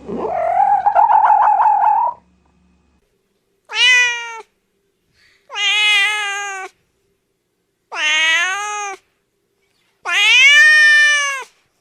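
A domestic cat meowing four times, each meow about a second long, rising and then falling in pitch. Before that, a buzzy, rapidly pulsing animal call cuts off about two seconds in.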